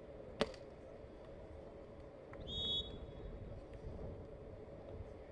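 Referee's whistle: one short, steady blast about two and a half seconds in. Before it, about half a second in, a single sharp smack, over low background noise.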